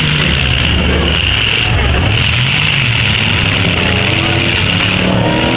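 Demolition derby cars' engines running and revving together, their pitch rising and falling, with crowd voices mixed in.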